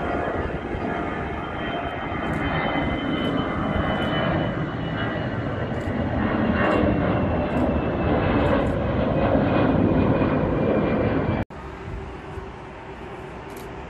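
Twin-engine narrow-body jet airliner climbing out after takeoff: loud jet engine noise with a high whine sliding slowly down in pitch, growing to its loudest about ten seconds in. Near the end it cuts off abruptly to a quieter steady hum.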